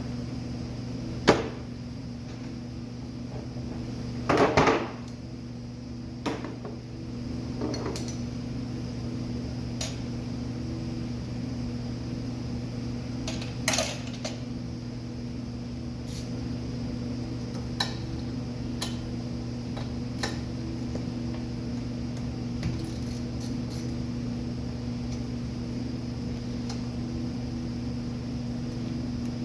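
Scattered clinks and knocks of metal tools and parts being handled during a brake job, several sharp ones in the first five seconds and lighter ones every few seconds after, over a steady low hum.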